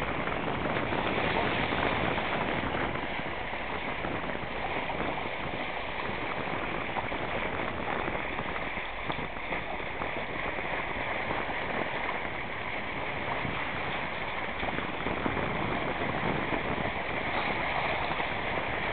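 Bow wave of a moving boat: a steady rush of water splashing and churning along the hull.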